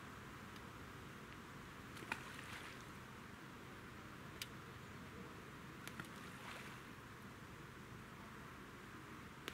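Quiet open-air background with a few faint, brief plops a couple of seconds apart as hand-thrown balls of groundbait land in the lake.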